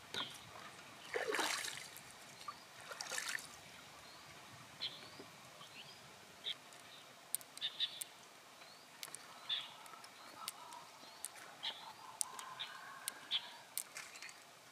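Gloved hands working an open freshwater mussel: a couple of scraping rustles in the first few seconds, then scattered sharp clicks as pearls are picked out and knock together in the hand. Birds chirp throughout.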